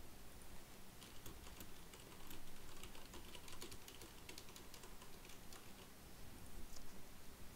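Computer keyboard typing: a quick run of key clicks starting about a second in and thinning out after about five seconds, with a few stray clicks near the end.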